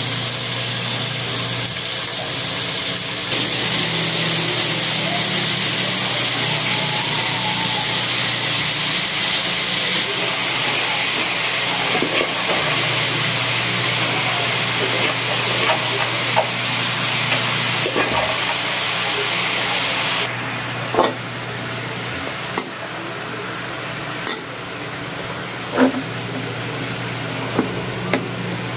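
Shredded chicken and vegetables (cabbage, carrots, green beans) sizzling as they are sautéed in a wok: a steady frying hiss, with a spatula scraping and tapping against the pan from about halfway. The sizzle drops off suddenly about two-thirds of the way through.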